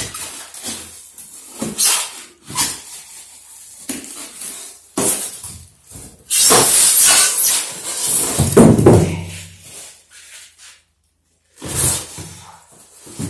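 Plastic wrapping rustling and crinkling and polystyrene foam packaging scraping, with knocks, as a heavy wood lathe in a plastic bag is wrestled out of its foam box. It comes in irregular bursts, the longest and loudest about halfway through.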